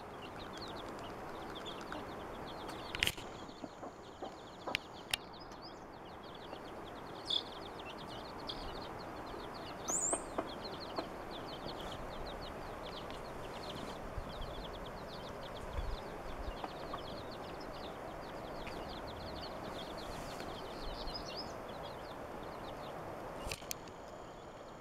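Baby chicks peeping almost without pause, a rapid run of short high chirps, with a few sharp clicks here and there.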